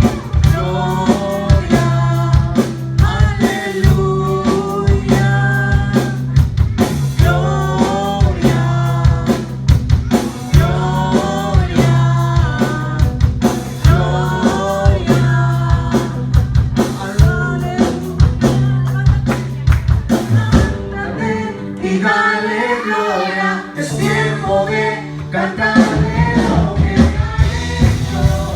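A woman singing a worship song with a live band of drums, bass and guitar, the drums keeping a steady beat. About three-quarters of the way through, the bass drops out for a few seconds before the full band comes back.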